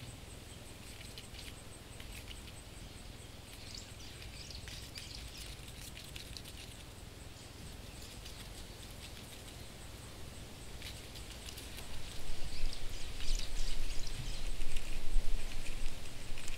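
Scurrying sound effect: quick, light scratchy clicks and rustles over a low rumble, growing louder about twelve seconds in.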